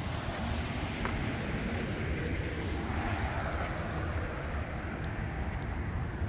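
Steady outdoor street noise: a low, even rumble of road traffic.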